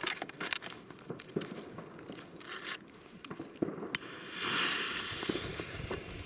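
Crinkly handling noises and scattered clicks, then a click and a steady hiss about four seconds in, lasting about a second and a half: a jet-flame gas lighter lighting the fuse of a fireworks cake, which catches and sparks.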